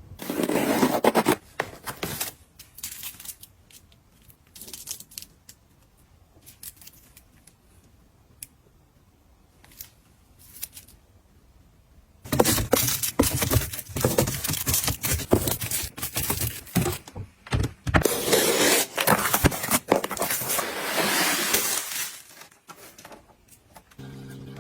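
Household items being handled and put away: scattered clicks and light knocks, then, about halfway through, some ten seconds of dense rustling and scraping.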